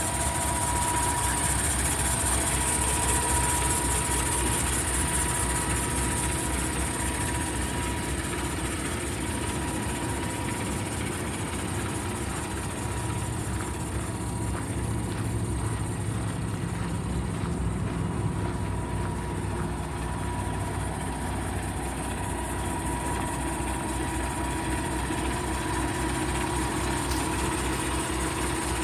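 Paccar MX-13 inline-six diesel of a 2019 Peterbilt 389 day cab idling steadily.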